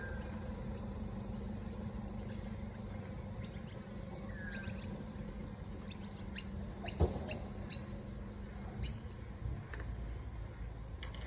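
A few sharp clicks and one louder knock from the Darche Eclipse 270 awning's frame and fittings as it is handled, over a steady low hum. There are also two short chirps, from a bird.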